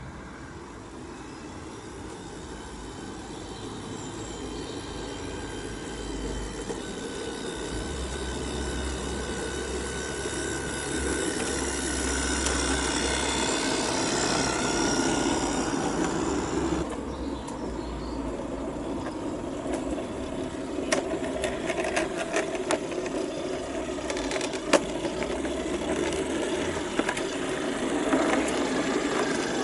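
Electric model railcar with a gearhead motor and bevel-gear drive running on garden-railway track, its motor and gears whining steadily and growing louder as it comes closer. In the second half there are several sharp clicks from the wheels on the track.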